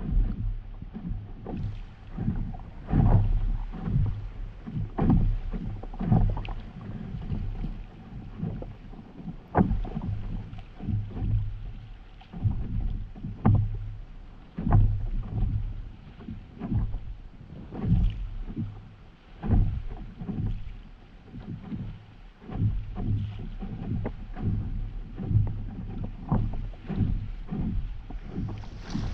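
Stand-up paddleboard paddle strokes dipping and splashing in the sea, an uneven stroke every second or two.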